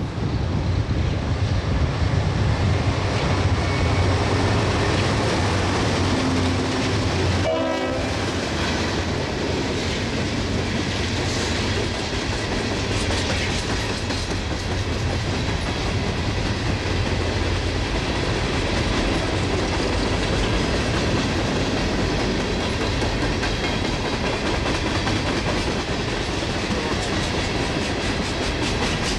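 Norfolk Southern diesel locomotives passing, with a low engine drone that fades about seven seconds in. A long string of empty ballast hopper cars follows, rolling by with a steady rumble and the clickety-clack of wheels over rail joints.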